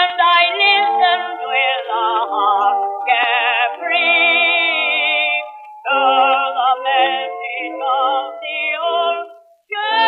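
Music from an acoustic-era phonograph recording: a sustained melody line with strong vibrato, thin and with no bass or treble. It breaks briefly about six seconds in and again just before the end.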